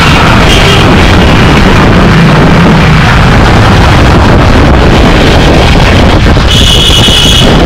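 Loud, unbroken city street noise with wind buffeting the microphone. Near the end comes a short high-pitched tone lasting about a second.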